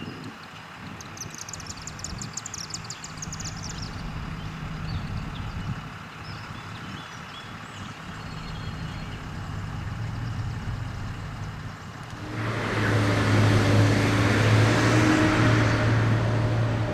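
Norfolk Southern SD70ACC diesel locomotive approaching under power. Its engine drone builds slowly, then about twelve seconds in it gets much louder as the locomotive arrives, with a rushing noise over a strong steady engine note.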